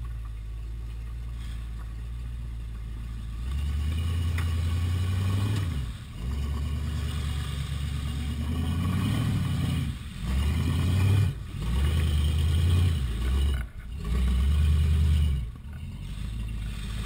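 Jeep Wrangler YJ engine running steadily at first, then revving in about five bursts of a second or two each, with short drops between them, as the Jeep works under load up out of a rocky ditch. It settles back to a steady idle near the end.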